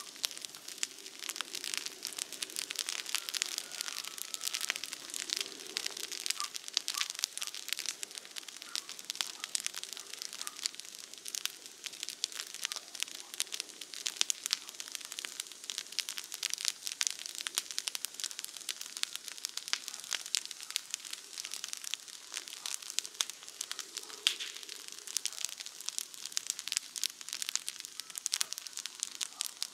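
Wood campfire crackling, with a constant run of many small sharp pops and snaps.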